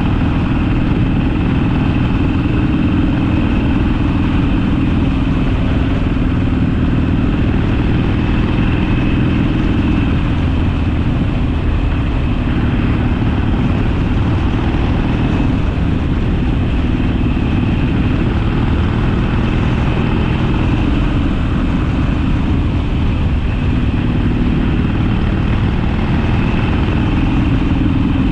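Harley-Davidson Sportster's air-cooled V-twin engine running steadily as the motorcycle is ridden, loud and continuous, its note clearer near the start and end and blurred by road noise in the middle.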